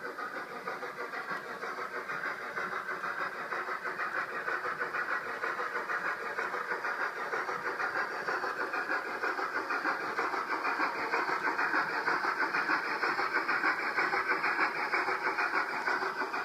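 Sound decoder in a Hornby OO gauge LNER A4 model steam locomotive playing steam exhaust chuffs through its small speaker. The chuffs come as a fast, even beat and grow gradually louder.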